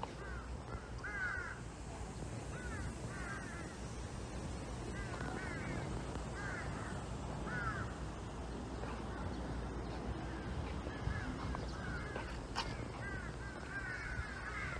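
Birds calling repeatedly, short arched calls in groups of two or three scattered throughout, over a steady low background rumble.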